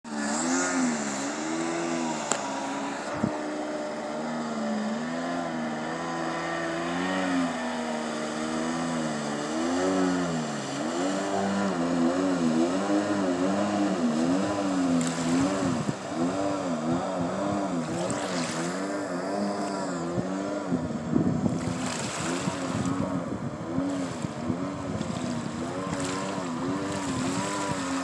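Kawasaki JS550 stand-up jet ski with a swapped-in Tigershark 640 two-stroke twin, running at speed on the water, its engine pitch rising and falling again and again as the throttle is worked. The engine is freshly tuned and running well.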